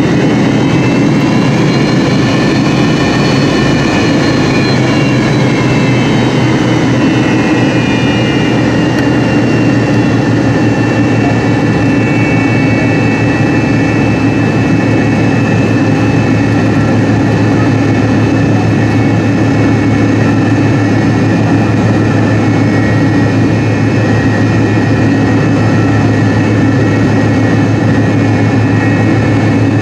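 McDonnell Douglas MD-88's rear-mounted Pratt & Whitney JT8D turbofans heard from inside the cabin near the tail as the jet taxis: a steady loud jet whine over a low hum. A few seconds in, the whine rises and then falls back in pitch.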